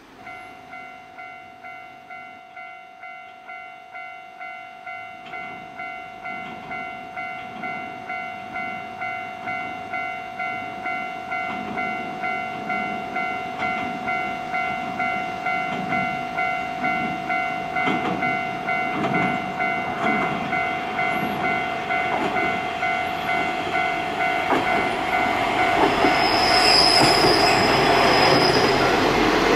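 A level-crossing warning bell rings steadily, about one ding every two-thirds of a second, as a JR KiHa 31 diesel railcar approaches. The railcar's engine and the clatter of its wheels on the rails grow louder until it passes close near the end, with a brief high wheel squeal.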